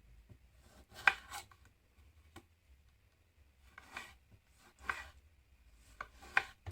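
Knife cutting vegetables on a chopping board: a handful of separate, irregular strokes, some in quick pairs.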